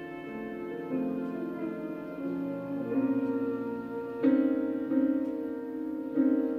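Slow live music: piano chords struck about once a second over sustained string notes, with a strong new chord about four seconds in and another near the end.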